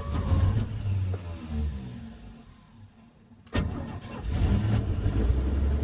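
Chevrolet C10 pickup's engine running, then dying away almost to silence. After a sharp click about three and a half seconds in, it starts up again and settles into a steady run.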